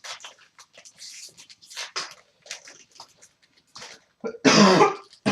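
Faint scattered clicks and rustles of trading cards and pack wrappers being handled, then one short loud cough about four and a half seconds in.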